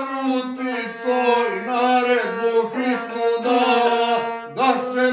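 A man singing a Montenegrin epic song to his own gusle, the single-string bowed folk fiddle. The bowed string holds one steady pitch beneath the voice, with brief breaks where the phrases turn.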